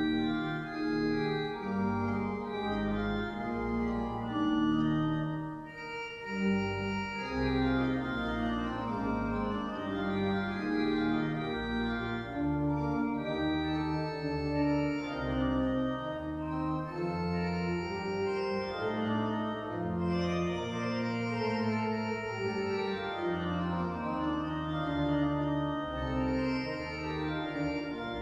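Church pipe organ playing the closing voluntary after the service: full sustained chords over a deep pedal bass, the harmony moving on about every second.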